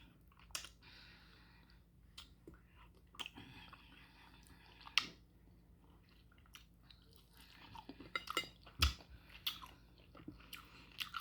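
Quiet close-up chewing of soft, slow-cooked beef and bone marrow, with scattered sharp mouth clicks. The loudest click comes about five seconds in, and a cluster of clicks comes near nine seconds.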